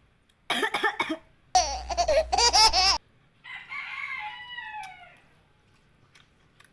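A rooster-like crowing call in two loud, wavering bursts lasting about two and a half seconds, then a softer cry that falls in pitch.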